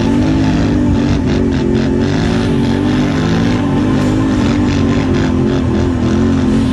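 ATV engine running hard, its revs rising and falling about once a second as the throttle works.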